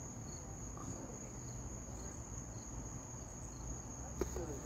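A steady high-pitched cricket trill over a low background hum, with a brief click about four seconds in.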